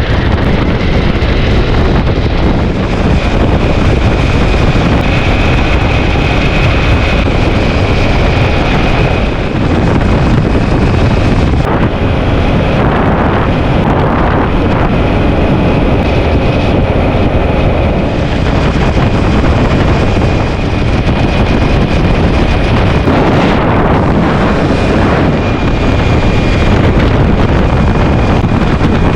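Heavy wind noise buffeting the microphone while riding a Ducati Multistrada V4S motorcycle at speed, with engine and road noise underneath and a faint steady high whistle.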